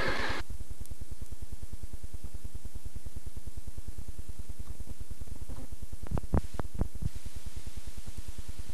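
Steady electrical hum and hiss of an old videotape soundtrack. About six seconds in, four faint thumps, about three a second, from a basketball dribbled on the hardwood gym floor.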